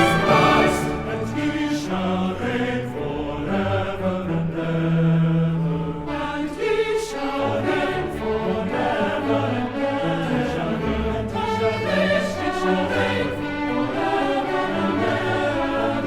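Symphony orchestra playing classical holiday music, with voices singing along in long held notes.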